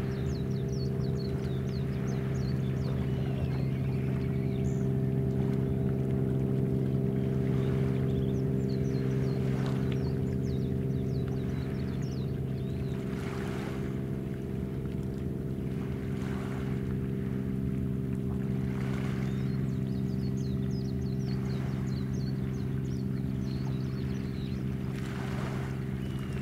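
Steady low machinery drone from a moored warship, a stack of even hums that does not change. Water washes softly every few seconds.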